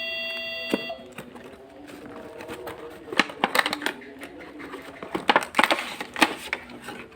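Irregular clicks and crinkles of a small product box and its packaging being handled and opened, busier from about three seconds in. Background music fades out about a second in.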